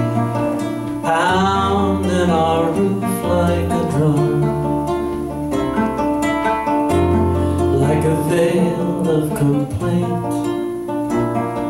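Live acoustic band music: a nylon-string guitar with bass and mandolin backing, playing a steady song. A man sings a line about a second in and another around eight seconds in.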